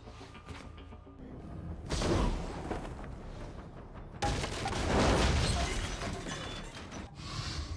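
Film soundtrack: dramatic score, broken by loud crashing impacts that hit suddenly about two seconds in and again about four seconds in.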